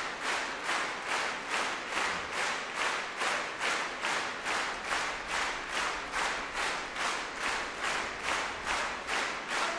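Large concert-hall audience clapping in unison, a steady rhythm of about three claps a second.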